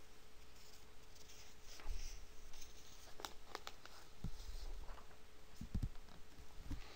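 Faint room noise from the narration setup: scattered small clicks and rustles with a faint steady hum, and a few soft low bumps about two seconds in and again around four to five seconds.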